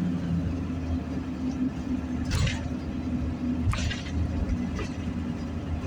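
Car engine and road noise heard from inside the cabin, a steady low hum, with two brief sharp noises about two and a half and three and a half seconds in.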